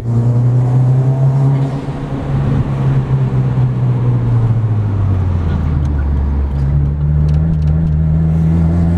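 Turbocharged Subaru flat-four engine heard from inside the car's cabin while driving. The engine note holds steady, then drops in pitch about halfway through and settles lower.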